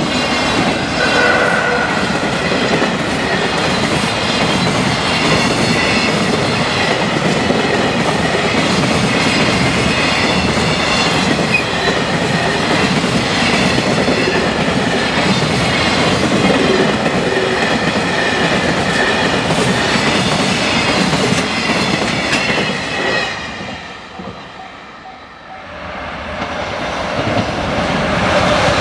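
Long freight container train passing at speed, its wheels clattering over the rail joints. About 23 seconds in the sound falls away, then builds again as another freight train approaches.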